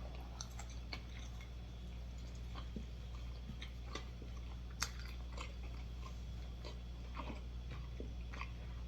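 A person chewing food close to the microphone, with scattered small crunches and wet mouth clicks over a faint steady low hum.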